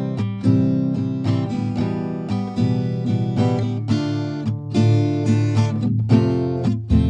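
Background music led by strummed acoustic guitar, with rhythmic chords.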